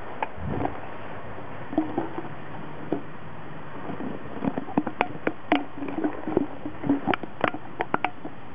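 Empty plastic drink bottle crackling and clicking as a puppy chews and paws it. The clicks are scattered at first and come thick and fast in the second half.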